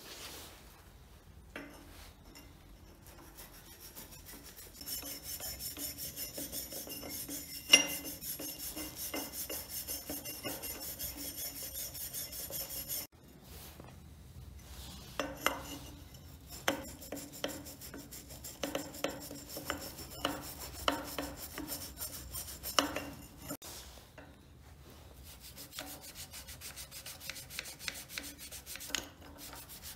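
A small wire brush scrubs rust off the metal parts of an old grease gun in quick, even strokes, in two long dense spells. Between them the strokes come separately and are broken by sharp knocks. A single loud sharp click about eight seconds in is the loudest sound.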